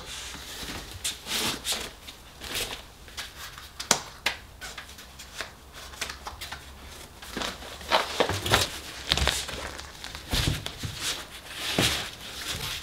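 Bluetti PV350 folding solar panel being handled and unfolded: rustling and crinkling of its fabric cover, with irregular clicks and knocks of the panel sections and a few dull thumps in the second half.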